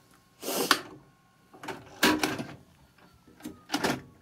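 Panasonic PV-V4524S four-head VHS VCR ejecting a cassette. The loading mechanism makes a series of clunks and rattles over a faint motor whine as the tape is pushed out of the slot.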